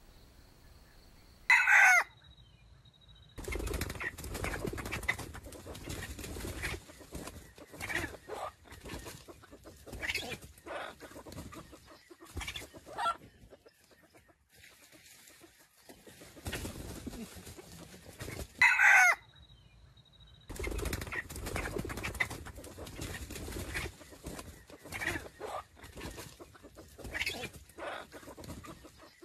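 Chickens clucking, with scuffling and wing flapping. A loud, short squawk comes twice: once about two seconds in and again past the middle.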